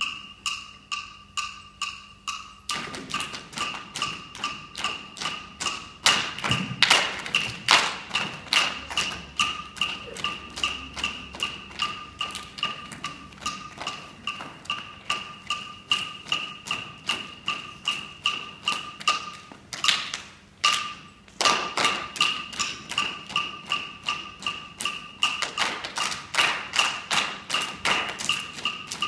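Wooden percussion struck in a fast, steady beat, each stroke ringing at the same two pitches. The beat fills out about three seconds in and breaks off briefly about twenty seconds in before carrying on.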